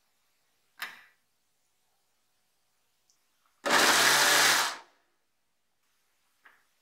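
A kitchen mixer grinder with a steel jar runs in one short pulse of about a second, grinding boiled dal to a paste. A short knock comes about a second in.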